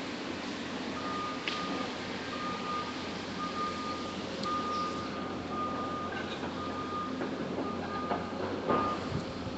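A vehicle's reversing alarm beeping: a single steady-pitched beep repeating about once a second, starting about a second in and stopping near the end, over steady background noise.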